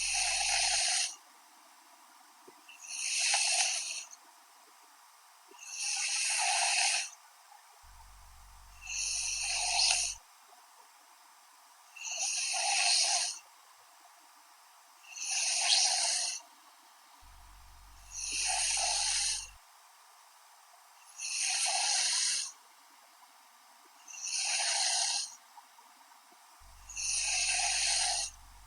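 A young woman snoring in her sleep, a raspy snore about every three seconds in a steady rhythm, about ten in all.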